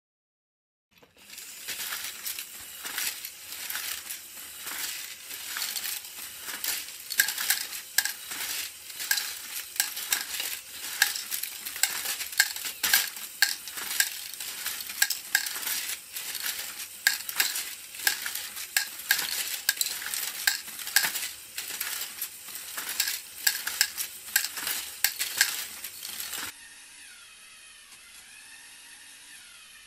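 LEGO Technic axle-sorting machine running: a dense, continuous clatter of many small plastic axles and parts rattling and clicking against each other. Near the end it gives way to much quieter running with a faint whine.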